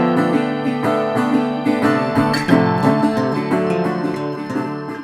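Background music with plucked guitar and piano, slowly fading out.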